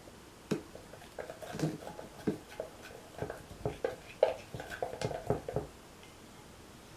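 A run of short, irregular squelches, taps and clicks from paint being squeezed out of a bottle and stirred into a wet slime mixture. The sounds stop about six seconds in.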